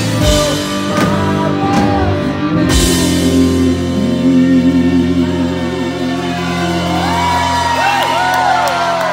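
Live rock band with electric guitar, drums and singing. About three seconds in the drums stop, and a held chord rings on under wavering sung notes.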